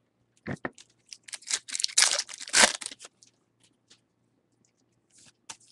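Baseball card pack wrapper being torn open and crinkled: a couple of sharp clicks, then a burst of tearing and crackling that lasts about a second and a half, followed by a few faint ticks as the cards are handled.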